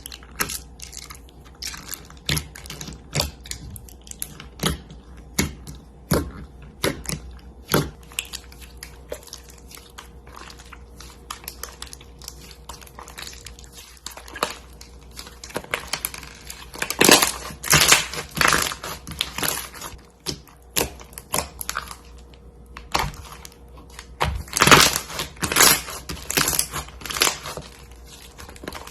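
Slime being pressed and squished by hand, giving sharp, crackling pops and clicks. They come singly at first, then in two louder, denser runs, about halfway through and near the end.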